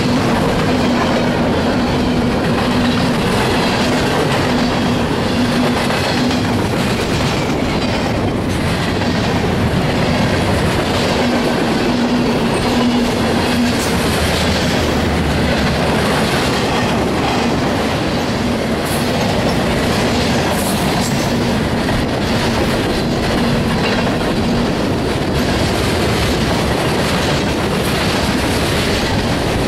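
Freight train cars (covered hoppers, tank cars) rolling past close by: a steady rumble of steel wheels on rail, with clicks of the wheels over rail joints and a low hum that comes and goes.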